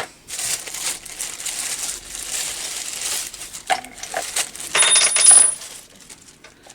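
Metal tool parts of a puller rattling and clinking as it is handled. About five seconds in comes a sharp metallic clink with a brief high ringing tone.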